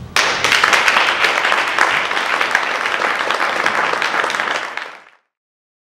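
Audience applauding: dense clapping breaks out suddenly at the end of the performance, holds steady, and fades away near the end.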